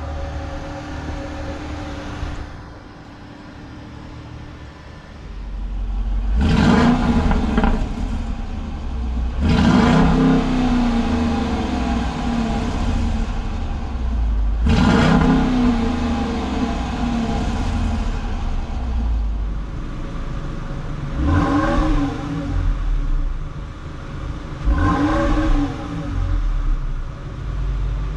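Exhaust note at the tailpipes of 2021 Dodge Durangos, a 5.7-litre HEMI V8 and a 3.6-litre Pentastar V6, idling and being revved. Three strong revs come in the first half and two smaller blips later.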